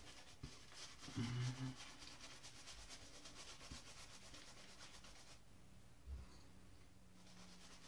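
Double-edge safety razor scraping through shaving lather and stubble in faint, repeated rasping strokes. A brief low hum about a second in and a dull thump about six seconds in.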